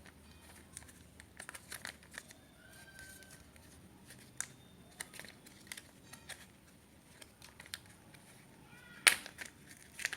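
Faint clicks, scrapes and crinkles of hands working at an opened laptop's memory slot to take out the RAM module, with one sharper click about nine seconds in.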